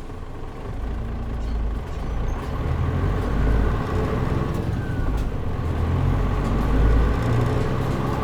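Interior running sound of a Mitsubishi Fuso Aero Star KL-MP37JM city bus with a turbocharged diesel engine and automatic gearbox, heard from inside the cabin with the air conditioning off. The low engine rumble builds about a second in and grows louder, with a few short breaks, as the bus pulls away and accelerates.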